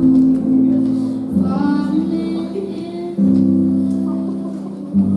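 Slow music with sustained low chords that change roughly every two seconds. A higher melody line rises and falls briefly about a second and a half in.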